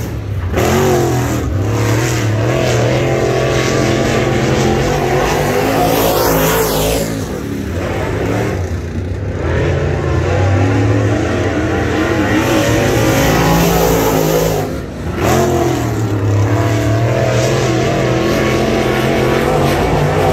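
Dirt late model race car's V8 engine running at racing speed, its pitch rising and falling with the throttle. It eases off for a softer stretch about 7 to 9 seconds in and dips sharply for a moment about 15 seconds in.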